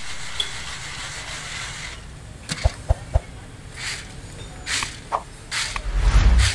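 Roasted peanuts and hot salt being shaken in a metal scoop over a large iron wok: short rattling, hissing bursts as the salt sifts back into the pan, the loudest near the end. About halfway through there are three sharp knocks of the scoop against the wok.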